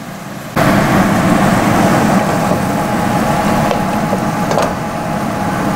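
Ground beef and Italian sausage sizzling as they brown in a pot, with a wooden spoon stirring and scraping through the meat. The sizzle comes in suddenly about half a second in and then holds steady and loud.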